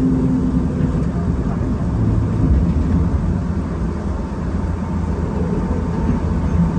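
Enoden electric train running, a steady low rumble of wheels on rail and traction motors heard from inside the front of the car.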